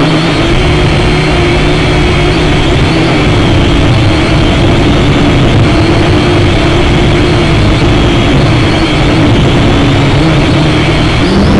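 Syma X5SC-1 quadcopter's small electric motors and propellers whirring steadily in flight, picked up by its onboard camera microphone, with a rough low rumble under the whine.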